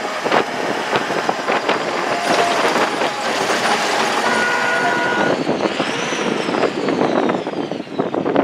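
Vehicle riding over a rough, unpaved mountain road: steady road and engine noise with constant rattling and knocking from the cabin.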